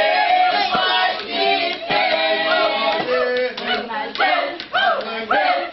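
A group of voices singing together, with scattered hand claps.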